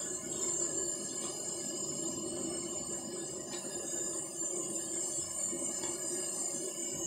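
Potato sticks deep-frying in a large wok of hot oil, with a steady sizzle. A steady high-pitched insect chirr runs underneath.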